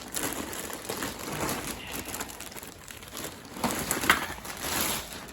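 Packaging bags being handled and unwrapped, crinkling and rustling irregularly, with a sharper crack about four seconds in.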